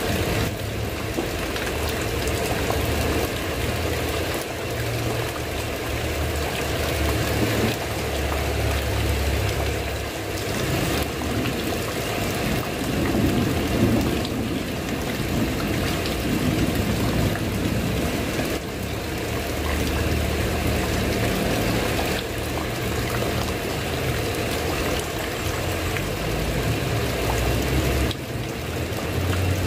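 Steady heavy rain falling on a tiled roof, a dense even hiss with no breaks. A low rumble rises and falls underneath.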